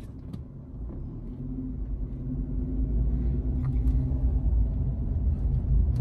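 Car engine and road rumble heard from inside the cabin, a steady low drone that grows louder over the first two or three seconds as the car gets moving.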